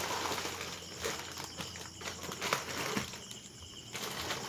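Rustling and crinkling of plastic-wrapped snack packs being handled, with a few light knocks as packages are set down.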